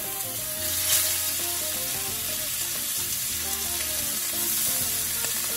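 Lamb chops sizzling in a hot skillet of rendered lamb fat as they are laid in one by one, the sizzle swelling about a second in. Background music plays underneath.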